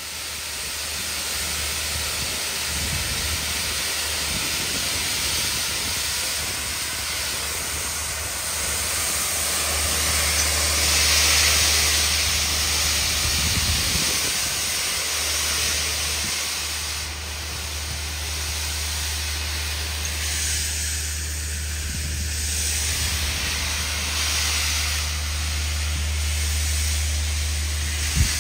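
Steam hissing steadily from GWR 4575 class Prairie tank locomotive No 5552, swelling to its loudest a little before halfway, over a low steady hum. A short thump right at the end.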